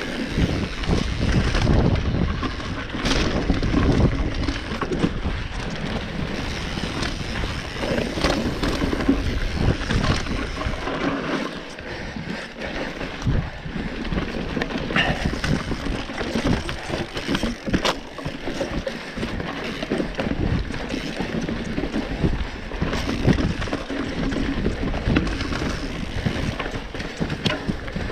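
Mountain bike with a suspension fork riding fast down a forest dirt trail: steady rumble of tyres on the dirt and wind buffeting the microphone, with scattered knocks and rattles from the bike over bumps.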